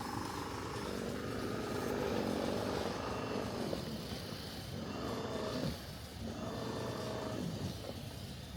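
A motor vehicle's engine running over a steady low rumble, its pitch rising and falling.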